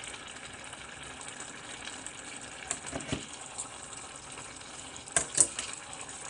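A hot pot of soup sizzling and bubbling on the stove with a steady hiss, while a metal ladle stirs it. The ladle scrapes and knocks against the stainless steel pot, a few light clicks about halfway and a louder cluster of knocks near the end.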